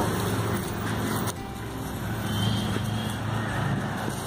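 Steady low rumble of road traffic with a vehicle engine hum, dropping a little in level about a second in.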